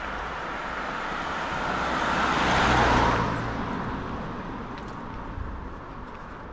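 A road vehicle passing close by, its tyre and engine noise rising to a peak about three seconds in, then fading away.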